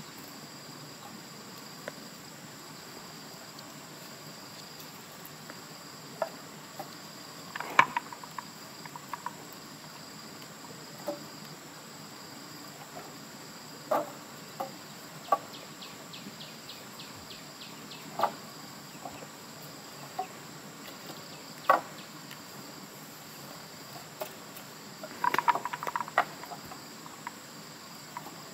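Dry wooden sticks knocking together now and then as firewood is handled and laid on a small pile, with a burst of clattering near the end, over a steady high buzz of insects.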